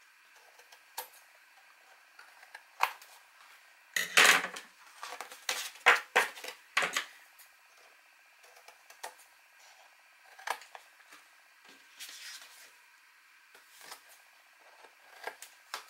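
Scissors snipping the corners off cardstock pieces (mitring the corners), a string of sharp, crisp snips with the card being handled and shuffled between cuts. The busiest stretch of cutting and handling comes about four to seven seconds in.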